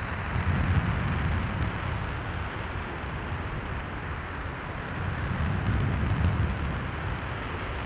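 RS-25 liquid-hydrogen/liquid-oxygen rocket engine firing steadily during a hot-fire test: a continuous rushing noise with a deep rumble underneath. The rumble swells about half a second in and again around six seconds.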